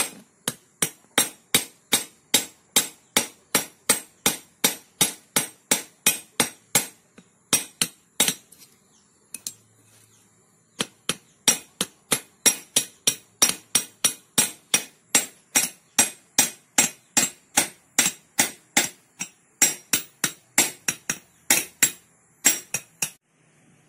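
Hand hammer striking a thin steel folding knife on a steel plate with quick, ringing metallic taps, about two a second. The strikes pause for a couple of seconds near the middle, then resume and stop shortly before the end. This is the peening of the nail pin that holds the folding knife together.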